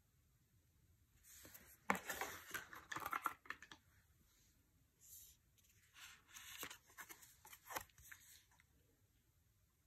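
Tarot cards being handled and flipped: papery sliding and flicking of card stock in two bursts, the first about a second in and the second around six seconds in, with a few sharp snaps.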